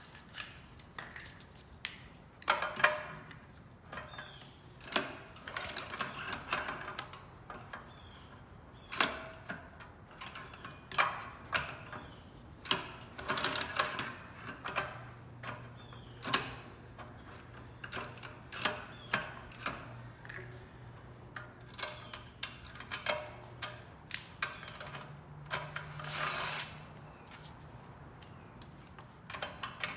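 Irregular clicks, knocks and clatter of tools and metal parts being handled during work on a portable generator, with a faint low steady hum through the middle and briefly again near the end.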